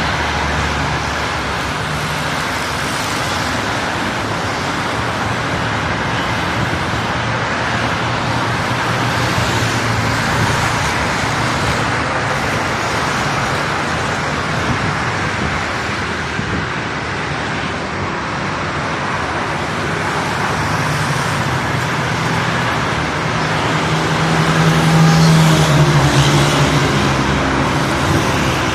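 Road traffic noise: a steady wash of vehicle engines and tyres, with a low engine hum that changes pitch and grows louder near the end.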